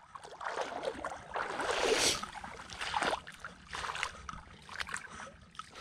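Irregular splashing and sloshing in shallow water, coming in uneven bursts, the loudest about two seconds in.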